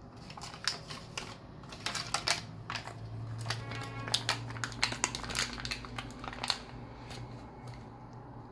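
Plastic backing sheet of self-adhesive rubber door bumper pads crinkling and clicking as it is handled and bent, a string of irregular sharp clicks. A low hum sits under the middle part.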